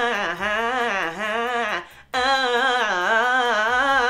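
A woman singing an ornate vocal run, her pitch wavering up and down in two long phrases with a short break about two seconds in. It is an exaggerated show of the over-embellished riffing some singers put into a solo.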